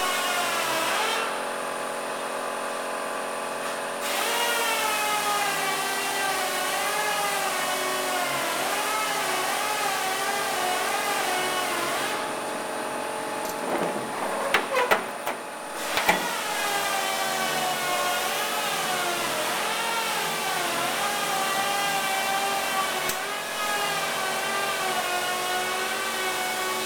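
A machine's whine whose pitch wavers slowly up and down without a break, like a power tool working under changing load. A few sharp clicks and knocks come about halfway through.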